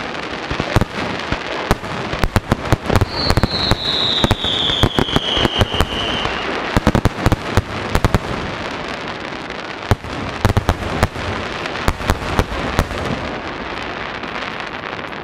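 Japanese star mine fireworks barrage: a rapid run of aerial shell bursts with dense bangs and crackle between them. About three seconds in, a whistle sounds for about three seconds, sliding down in pitch. The bangs thin out near the end.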